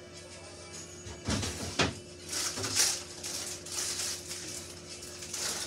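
Kitchen handling sounds: two dull knocks about a second and a half in, then several short rustles, over a steady low hum.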